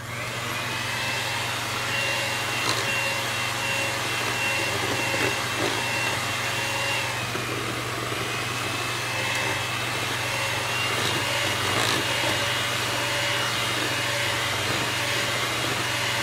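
Electric hand mixer running at low speed, its beaters whisking instant pudding mix into milk in a bowl. A steady motor hum with a thin high whine that dips briefly about seven seconds in.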